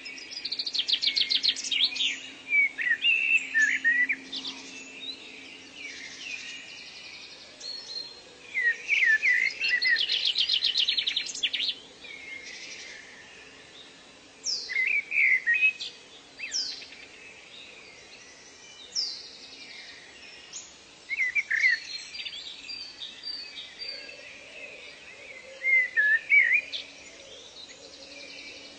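Wild songbirds singing: two bursts of fast, high trills, with sharp chirps and quick downward-sliding whistles coming every few seconds.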